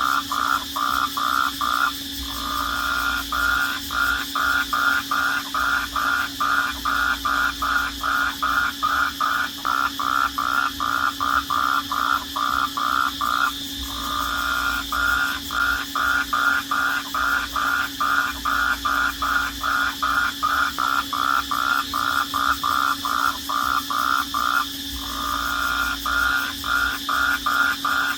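Crickets chirping at night, a loud, even chirp about three times a second over a steady high trill. The chirping stops briefly three times, about every eleven seconds.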